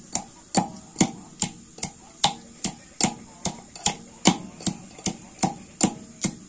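Food being mixed by hand in a steel bowl: a steady run of sharp clicking strokes, about two and a half a second, as the hand works against the bowl.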